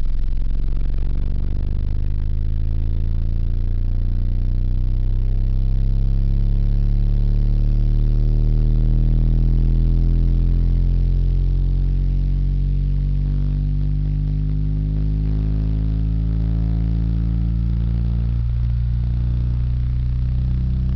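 Orion XTR Pro 12-inch subwoofer, rated 500 W RMS, playing loud, deep bass, with tones that slowly slide up and down and no gaps.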